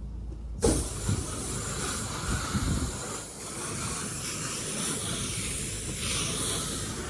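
A 5.5 gallon-a-minute pressure washer's spray starting suddenly about half a second in: a loud hiss of water jetting at high pressure, then running steadily.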